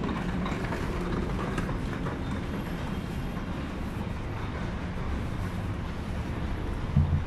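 Urban street ambience: a steady rumble of vehicle traffic with a low hum, and a brief low-pitched sound near the end.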